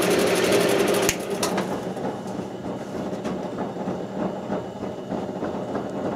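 Wood lathe running while a turning tool cuts the spinning wood blank, until a sharp click about a second in. After that the cutting noise stops and a quieter machine hum continues, with scattered light clicks and taps.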